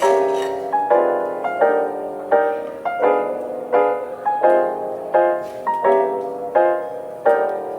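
Background piano music: soft notes played in a steady rhythm, each note struck and fading.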